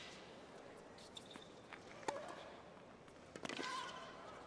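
Tennis rally: a tennis ball struck back and forth by rackets and bouncing on the hard court, heard as a few sharp pops, the loudest about three and a half seconds in.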